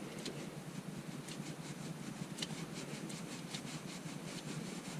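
A hand in a cloth rubs and clicks as it works the 6.7 Cummins diesel's oil filter out of its housing in a tight spot. A run of faint, quick clicks starts about a second in and carries on almost to the end, over a steady low hiss.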